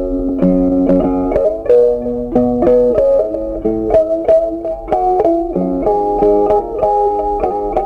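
Background music: a plucked guitar melody, several notes a second.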